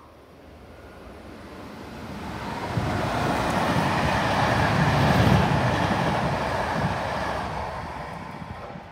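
Intercity passenger train hauled by an E464 electric locomotive passing close beneath, a rumble of wheels on rails that builds, is loudest about midway as the coaches go by, then fades away.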